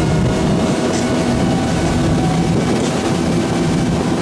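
Tow boat's engine running steadily under way, with rushing wind and water noise.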